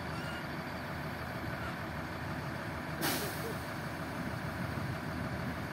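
Heavy diesel engines idling steadily, with a short sharp hiss of compressed air from the truck's air brakes about three seconds in.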